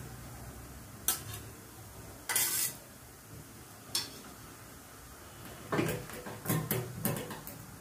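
A metal spatula scraping and clinking against a metal kadai while stirring egg bhurji: a few separate scrapes, then a quicker run of scrapes near the end.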